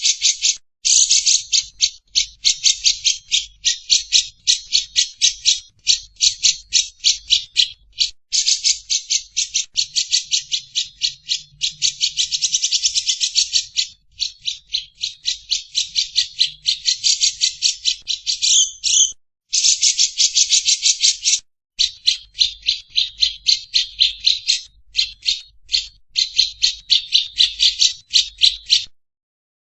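Lovebird ngekek: a long, rapid chattering trill of sharp high notes, about ten a second, in extended runs broken by short pauses, stopping shortly before the end.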